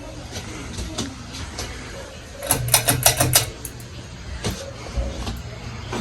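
Ceiling fan running with a steady low motor hum, broken about two and a half seconds in by a quick run of sharp clicks, with a few more clicks near the end.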